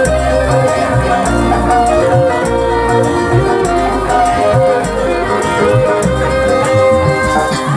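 Live dangdut band playing an instrumental passage of the song: a held melody line over bass guitar and a steady drum and tambourine rhythm.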